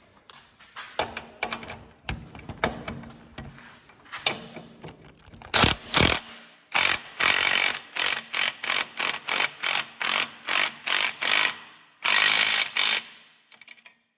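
Impact wrench run in short trigger bursts to tighten the lower control arm's mounting bolts. First come scattered metallic clicks and knocks, then one longer run, about a dozen quick pulses two to three a second, and a final longer run near the end.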